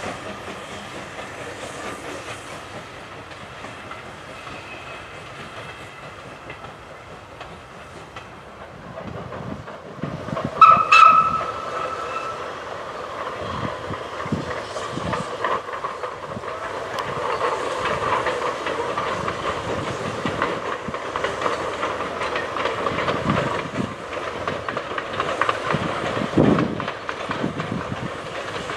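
SNCF 140C steam locomotive working a freight train along the line: wheels clattering over the rails with the engine's exhaust beats. About ten seconds in there is a short whistle blast, and after it the train sounds louder.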